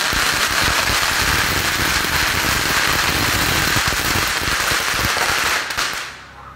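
A string of firecrackers going off in a rapid, unbroken crackle of bangs that starts suddenly and stops nearly six seconds later.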